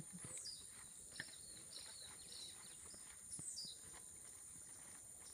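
Quiet outdoor ambience: a steady high-pitched hum with birds calling over it, including two quick falling whistles and a few short chirps.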